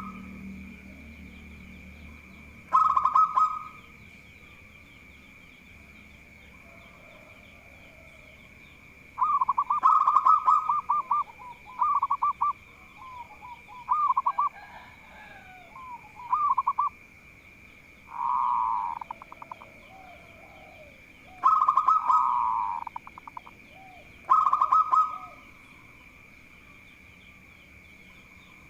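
Zebra dove (perkutut) cooing: about eight phrases of rapid, staccato coo notes separated by pauses of a few seconds, over a steady faint high-pitched hum.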